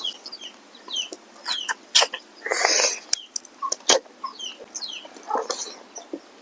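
Chickens clucking and small birds chirping in short falling notes, with scattered sharp clicks and one louder, harsher call about halfway through.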